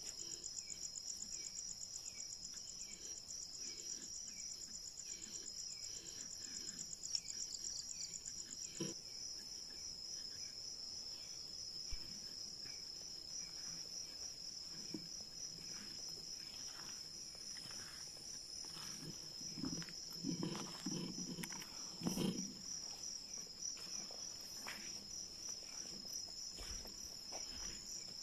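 Night insect chorus: two high, rapidly pulsing trills run side by side, and the higher one stops about nine seconds in. In the second half there are rustles and soft thumps of someone moving through undergrowth, loudest near the end.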